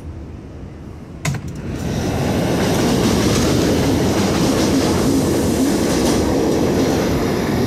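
A New York City subway train running on the next track of the elevated line: wheel and rail clatter that builds about two seconds in and stays loud, after a single sharp clack just over a second in.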